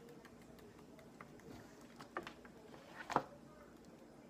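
Faint light ticks of a cockatiel's claws stepping on a wooden tabletop, with one sharper tap about three seconds in.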